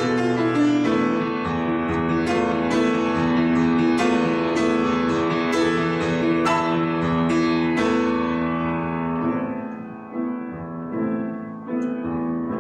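Piano playing a passage from a classical art-song accompaniment: a steady run of struck chords that thins out to softer, sparser chords about ten seconds in.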